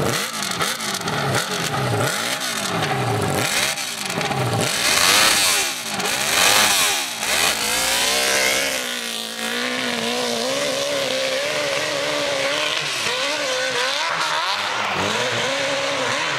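Dirt bike engine revved in a series of quick throttle blips, then opened up fully about five seconds in as the bike launches up the hillclimb. After that the engine note holds steady while the bike climbs away.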